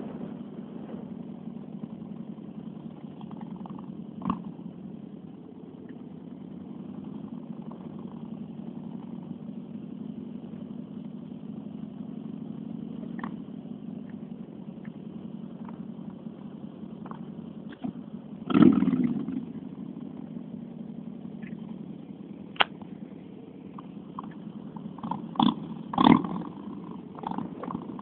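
Steady low hum of a car driving, heard from inside the cabin, with a few knocks and thumps. The loudest thump comes about two-thirds of the way through, and a short cluster of knocks comes near the end.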